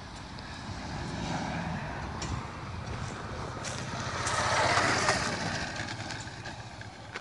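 A motor vehicle engine running, growing louder to a peak about five seconds in and then fading, like a vehicle passing by.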